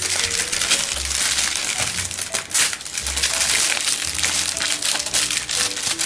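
Clear plastic packaging bag crinkling and rustling as a boxed pianica is handled inside it, with a dense run of crackles.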